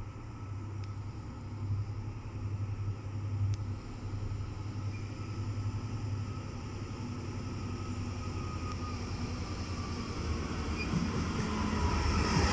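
Class 66 diesel-electric locomotive's EMD 710 two-stroke V12 engine running as it approaches at the head of a freight train, growing steadily louder.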